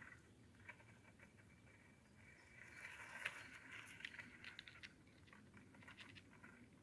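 Near silence, with a few faint scattered ticks and light rustling from about halfway through.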